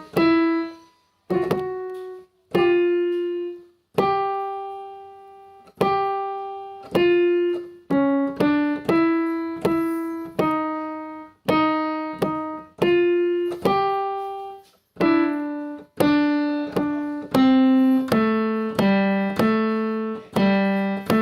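Piano played one note at a time in a slow melodic line, each struck note ringing and fading; the first few notes are spaced apart with short silences, and from about eight seconds in the notes follow more closely.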